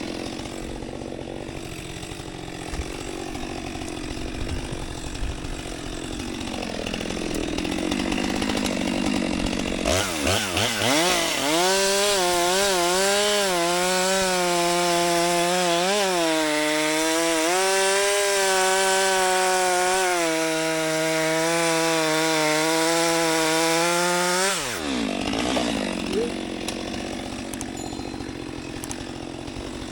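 STIHL MS462 chainsaw, a single-cylinder two-stroke, revving up to full throttle about a third of the way in. It holds a high, wavering pitch as it cuts through a log under load for about fourteen seconds, then drops back off the throttle. Before and after the cut, a steadier engine hum runs underneath.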